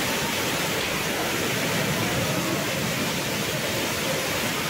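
Heavy rain falling and muddy floodwater rushing down steps, a steady, even wash of water noise.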